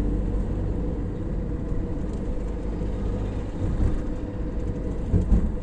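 Steady low rumble of road and engine noise, heard from on board a moving road vehicle.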